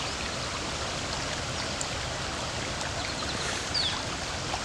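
Steady rush of floodwater running through an overflowing ditch across a washed-out trail, with a few faint short chirps on top.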